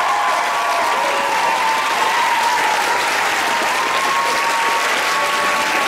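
Theatre audience applauding loudly, with long held cheers over the clapping.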